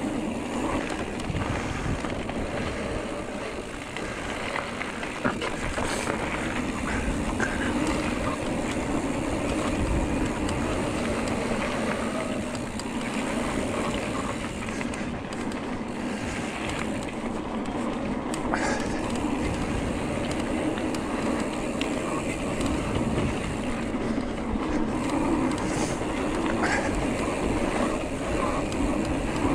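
Giant Trance E+3 electric mountain bike riding down a dirt trail: steady tyre noise over the ground and rattling from the bike, with occasional sharp knocks, and wind on the microphone.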